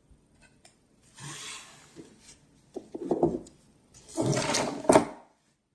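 Small parts of a Dunhill Rollagas lighter being handled and fitted back in place: three bouts of rubbing and scraping, the last and loudest ending in a sharp click.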